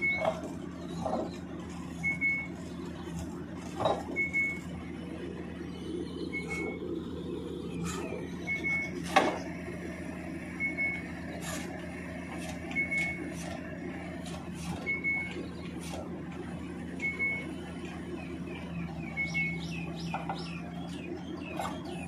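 GIKEN hydraulic press-in sheet piler at work pressing a steel sheet pile, with a steady machinery hum. A short high electronic beep repeats about every two seconds, and there are occasional sharp metallic clanks, the loudest about nine seconds in.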